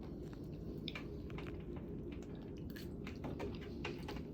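Goffin's cockatoo's beak picking and crunching at a fried chicken bone: quick, irregular little clicks and crunches over a steady low room hum.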